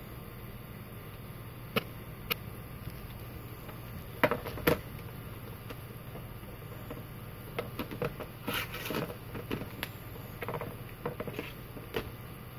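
Hands handling a Samsung Galaxy S5 smartphone: a few sharp plastic clicks and taps, then a longer run of clicking and scraping from about eight to twelve seconds in.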